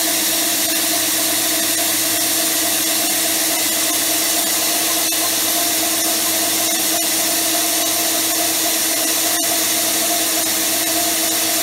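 Highland Park core drill cutting through stone with its core bit: a steady whine over a hiss at an even level, with the control opened to half a turn so the bit cuts with a different tone.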